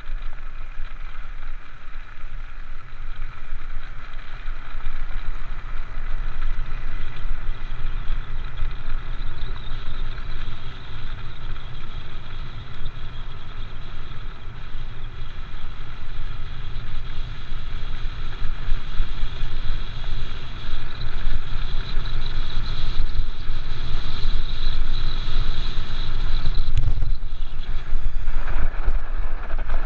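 Mountain cart's wheels rolling downhill over a gravel and paved track: a continuous rumble and rattle mixed with wind, muffled by a camera's waterproof housing, growing a little louder in the second half, with a brief sharp knock near the end.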